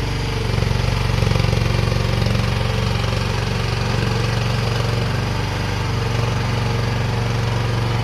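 Engine of a small stand-up ride-on mini skid steer running steadily.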